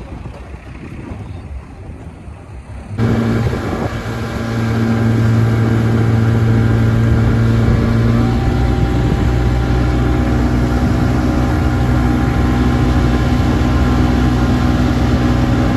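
Outboard motor with a "48" badge running steadily at speed, driving the boat under way. It cuts in suddenly about three seconds in, after a quieter stretch, and its pitch shifts slightly about eight seconds in.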